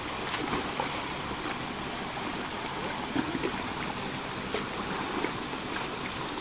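Shallow river water rushing over rocks and down a small cascade into a pool, a steady wash of flowing water with a few faint ticks.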